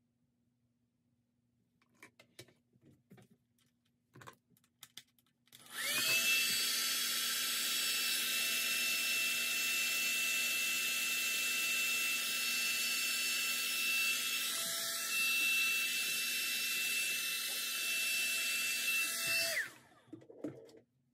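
Handheld hair dryer switched on and running steadily for about fourteen seconds with a high whine over the rush of air, then switched off, the whine falling away as the motor winds down. A few light handling clicks and taps come before it starts.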